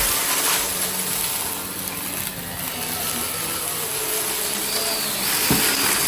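Goodmans TurboMax vacuum cleaner running steadily with a high hiss, with a short knock about five and a half seconds in.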